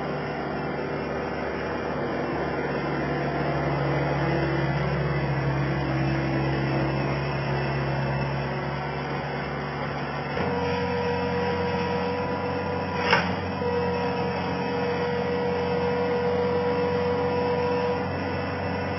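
Skid steer loader's engine running steadily, its note changing abruptly about ten seconds in, with a sharp click a few seconds later.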